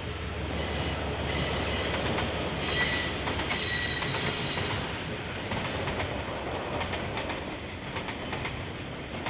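A KiwiRail train passing, heard through a security camera's microphone: a low rumble, a high squeal from the wheels about one to four seconds in, then the wagons rolling by with a run of clicks over the rail joints.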